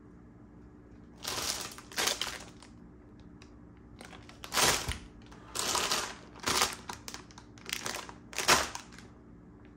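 Plastic bags holding dirt bike inner tubes crinkling as they are handled, in about seven separate rustles.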